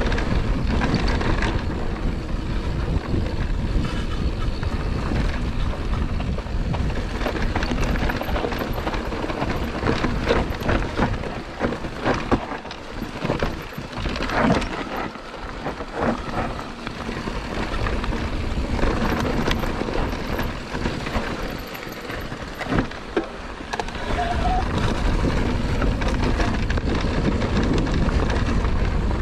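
Wind buffeting the microphone as a Scor 4060 Z ST electric mountain bike rides down rough singletrack, with the tyres going over dirt and rock and the bike rattling and knocking over the bumps. For about ten seconds in the middle the wind eases and the clicks and knocks of the bike stand out more.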